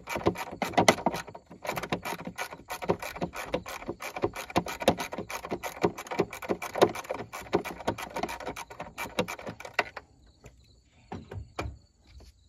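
A 10 mm wrench clicking rapidly as it ratchets a small nut loose. The clicking stops about ten seconds in, and a few light knocks follow.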